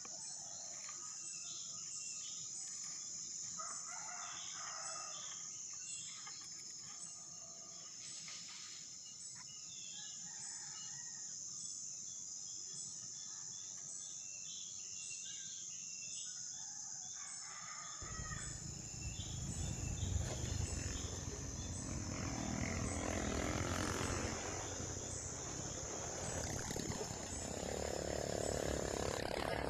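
Steady high-pitched insect drone with scattered short bird calls; from a little past halfway the sound turns louder and rougher.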